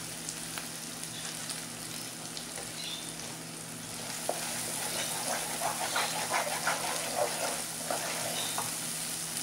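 Thick onion-tomato masala sizzling in oil in a non-stick kadhai. From about four seconds in, a wooden spatula stirs and scrapes it around the pan, and the sound grows louder.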